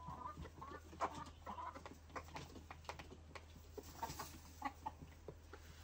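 A flock of Egyptian Fayoumi chickens clucking softly while feeding, with scattered short taps and ticks throughout.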